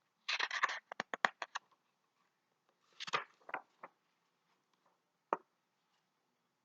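Paper rustling with a quick run of sharp clicks, then a second rustle with a few clicks and one last click near the end: a picture book's pages being handled and turned.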